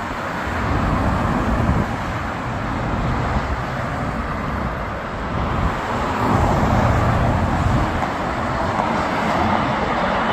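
Road traffic noise: cars passing on a multi-lane road with a steady rush of tyres and engines, growing louder about six seconds in as vehicles go by.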